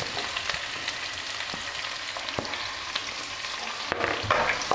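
Sliced onions sizzling in hot oil in a nonstick wok, an even hiss with scattered crackles. A few louder knocks come near the end.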